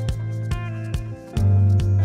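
Background music with a steady beat over a sustained bass line; it drops away briefly a little past a second in, then comes back fuller.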